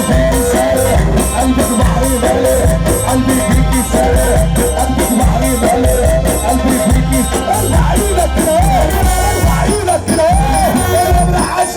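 Loud Egyptian mahraganat music over a PA: a heavy, pounding bass beat under a wavering melody, with some singing.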